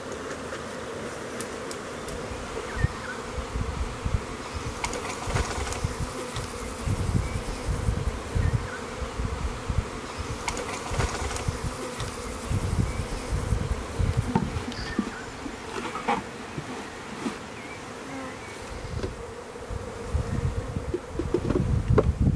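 A swarm of honeybees buzzing in a steady, even drone, with a few short knocks and low handling rumbles over it.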